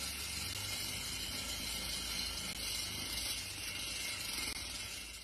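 Core drilling through a vacuum dust shroud: a steady rush of air being sucked through the shroud and hose by the vacuum extractor, over a low steady motor hum.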